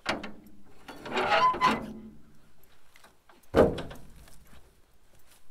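Rear door of a metal livestock trailer being unlatched and swung open: a latch click, about a second of metal scraping with a brief squeak, then a loud knock about three and a half seconds in.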